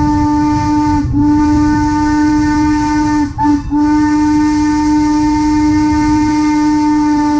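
Steam whistle of Norfolk & Western 4-8-0 locomotive No. 475, blown close up in the grade-crossing pattern. A long blast ends about a second in, a second long blast follows, then a short toot at about three and a half seconds, and a final long blast that is still held at the end, with steam hissing above it.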